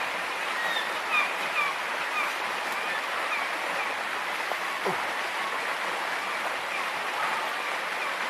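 Steady rushing of a river, with faint short high chirps in the first few seconds and one brief falling sound about five seconds in.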